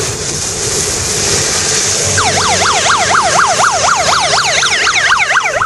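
A siren in fast yelp mode starts about two seconds in, its pitch sweeping rapidly up and down about four times a second. It sounds over the steady hiss of vehicles passing on a wet road.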